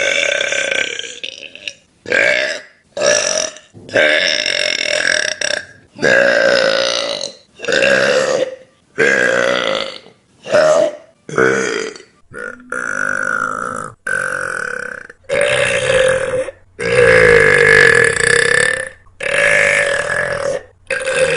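A young woman burping loudly, about fifteen belches in quick succession with short gaps, most under a second and a half and one drawn out for about two seconds in the last third.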